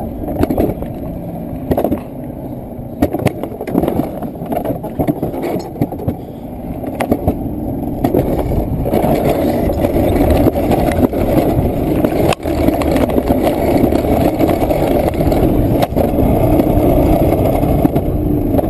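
Alpine coaster sled running fast down its steel rail: a steady rumble of wheels on the track mixed with wind rush, with small knocks, growing louder about halfway through.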